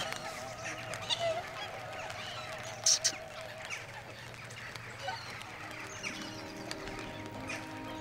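Waterfowl calling in a flock, a mix of honks and short calls, with two sharp clicks about three seconds in. A sung melody with a wide vibrato fades out in the first two seconds, and held music notes come in from about six seconds.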